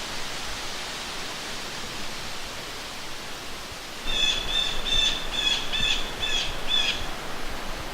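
Steady outdoor hiss, with a bird calling a series of about seven short, evenly spaced notes starting about halfway through.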